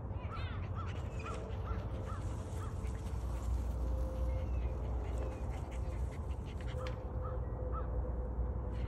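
A bird calling in a quick series of short, repeated notes, about three a second, for the first few seconds, with a shorter run of the same notes near the end, over a steady low rumble.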